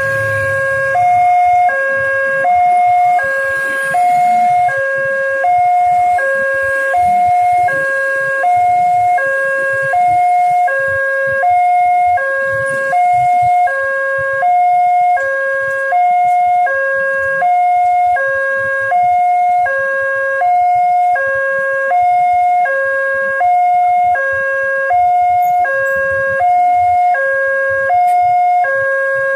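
Railway level-crossing warning alarm switching on and sounding continuously: an electronic two-tone signal alternating low and high, about one low–high cycle every second and a half, warning that a train is approaching and the barriers are closing.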